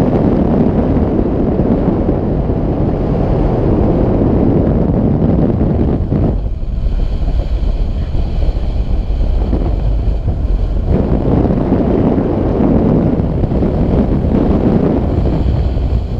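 Airflow buffeting the microphone of a camera mounted on a tandem hang glider's wing during a low glide, a loud, steady rush of wind that eases for a few seconds in the middle.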